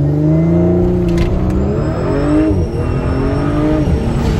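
B9.5 Audi S4's turbocharged 3.0-litre V6, running a Stage 1 E85 tune, accelerating hard as heard from inside the cabin. The engine note climbs, drops at an upshift about two and a half seconds in, climbs again and shifts once more near the end.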